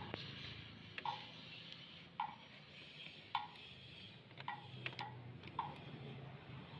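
Regular ticking, about once a second, each tick paired with a short high beep, over a steady low hum, with a few extra irregular clicks near the end.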